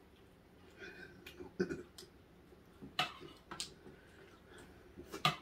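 Someone eating: a handful of sharp mouth clicks and smacks while chewing, the loudest near the end.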